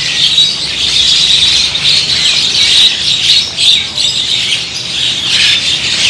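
Many small caged songbirds chirping and squawking at once, a dense, unbroken, high-pitched chatter.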